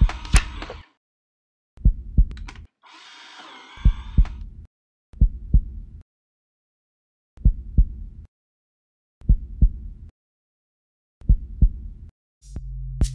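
Heartbeat sound effect: a low double thump, lub-dub, about every two seconds. A whirring mechanical pass, like a flatbed scanner's carriage, sounds over the first beat and again about three seconds in, and a low hum comes in near the end.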